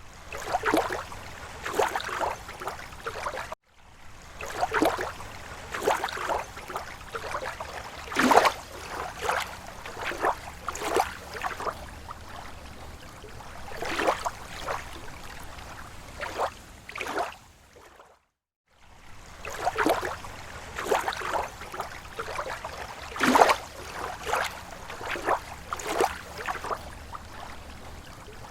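Small slow waves lapping against a lake shore: irregular splashes and gurgles, a few a second, over a steady low rumble. The sound cuts out to silence for a moment twice, a few seconds in and again past the middle.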